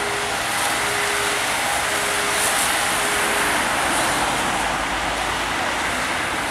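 Road traffic hissing along a wet road, with a fire engine's two-tone siren alternating between a low and a high note and fading into the distance, gone about three and a half seconds in.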